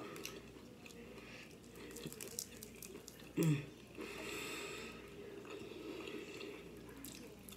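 Close-up eating sounds: chewing and mouth sounds of someone eating fried food, with small clicks and rustles as fingers pick at it over a plastic container. About three and a half seconds in there is a short, louder low 'mm'-like sound from the eater.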